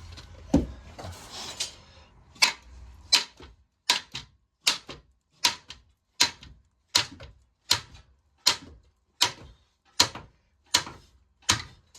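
Steady hammer blows on metal, one roughly every three quarters of a second, each with a short ring, as a seized front suspension part of the car is knocked loose. They follow a scrape and a single thump in the first couple of seconds.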